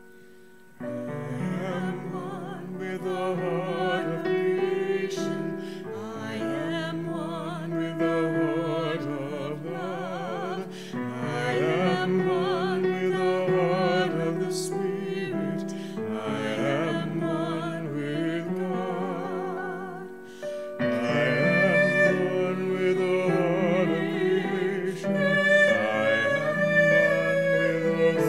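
A woman singing a slow hymn with vibrato, in phrases of a few seconds, over piano accompaniment.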